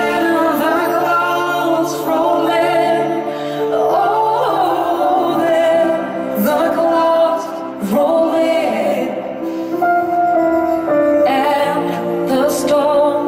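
A woman singing live into a microphone over band accompaniment, holding long notes with vibrato.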